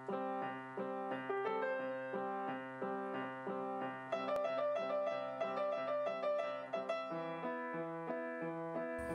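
Background piano music: a gentle run of notes struck in an even rhythm.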